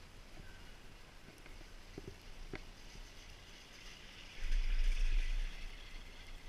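Garaventa-CTEC six-place detachable chairlift passing a tower: the haul rope and chair grip roll over the tower's sheave train, giving a loud rumble and whir for about a second just past the middle. A few light clicks come before it.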